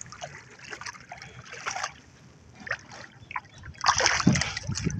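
Shallow sea water splashing and trickling around a small outrigger boat as it is pushed through the shallows, with a run of louder splashes starting about four seconds in.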